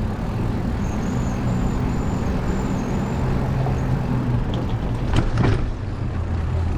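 Steady low rumble of a motor vehicle's engine running, with a brief rattle about five seconds in.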